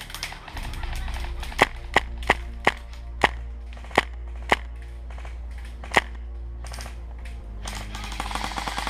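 Airsoft guns firing single shots: about eight sharp, loud snaps spaced irregularly in the middle of the stretch, with many fainter, more distant shots clicking in between and after.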